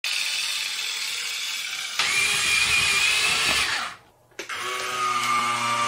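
Electric motor of a Huina RC toy dump truck whining, with marbles clattering as they spill from the tipping bed. There is a brief gap about four seconds in, then a lower-pitched motor whine.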